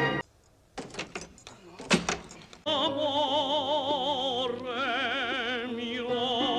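A brass music cue cuts off at the start, followed by a couple of seconds of a few scattered knocks and clinks. Then, under half-way in, a high operatic voice sings long held notes with a wide vibrato.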